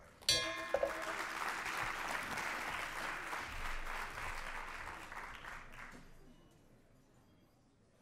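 A brass bell on a stand is struck twice in quick succession, ringing to adjourn the forum, and the audience applauds at once. The applause fades out about six seconds in.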